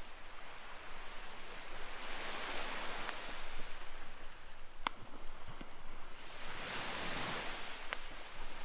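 Small waves washing onto a pebble beach, swelling twice into a hiss and falling back, with a single light click about halfway through.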